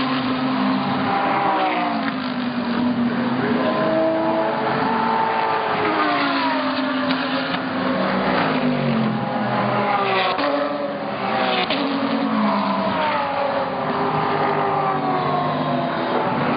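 GT race car engine at racing speed, its pitch climbing and dropping over and over as it accelerates, shifts gear and slows for corners.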